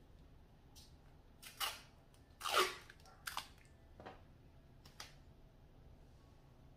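Tape being pulled off a roll and torn for placing under the eye: about six short rasps and clicks, the loudest and longest about two and a half seconds in.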